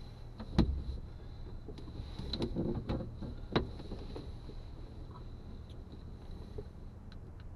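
A few light knocks and clicks inside a closed glider cockpit, the sharpest about half a second in and about three and a half seconds in, over a low steady rumble.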